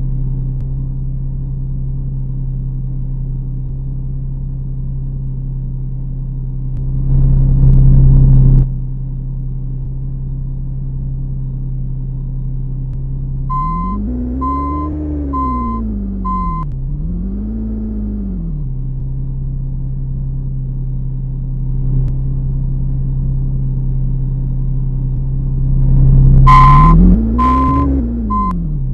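A bus's diesel engine running steadily, revving up and back down twice. A vehicle beeper sounds four short beeps during the first rev, and more beeps come near the end. About seven seconds in there is a louder noisy stretch lasting over a second.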